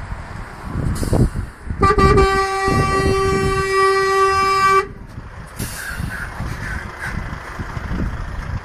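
DAF XF truck sounding its horn in one long steady blast of about three seconds, starting about two seconds in, over the low rumble of the truck's engine as it approaches.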